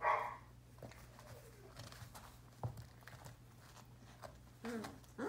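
Young sheepadoodle puppies at play: a loud short yap right at the start, light scuffling and small clicks of paws on the rug and floor, and another short puppy yap near the end.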